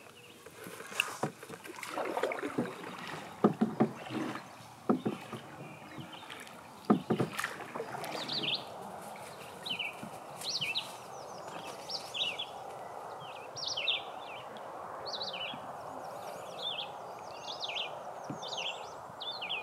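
Canoe on a flowing river: scattered knocks of paddles and gear against the hull and water splashing for the first several seconds, over steady running water. From about halfway in, a bird sings short high chirping phrases about once a second.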